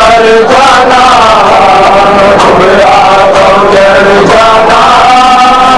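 Men of a Shia matam group chanting a Muharram noha (lament), a lead voice sung into a microphone, loud and unbroken.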